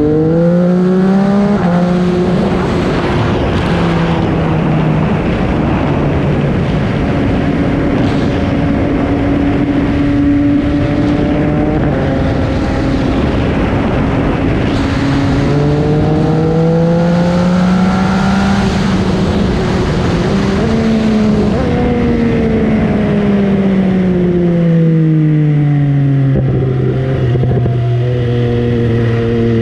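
MV Agusta Brutale 800's three-cylinder engine under way. Its pitch climbs and drops sharply twice in the first couple of seconds as it shifts up, holds fairly steady, climbs again past the middle with another quick shift, then falls away as the bike slows near the end. Wind and road noise rush under the engine.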